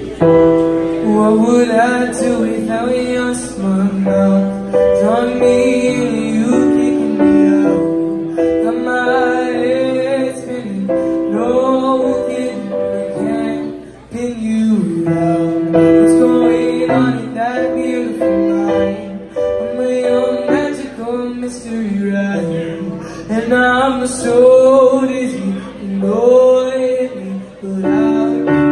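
Young male vocalist singing live while accompanying himself with held chords on a Yamaha electric keyboard, through a microphone and amplifier, with a short break in the phrase about halfway through.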